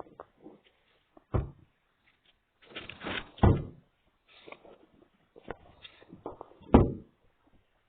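Several heavy thuds and knocks, like a lid or door being banged: a loud one about a second and a half in, a rattling cluster around three seconds, and another loud thud near the end.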